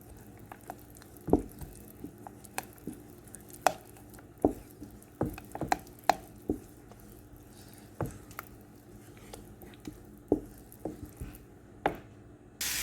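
A utensil stirring a thick black-eyed pea batter in a bowl, with irregular knocks and taps against the side, about one or two a second.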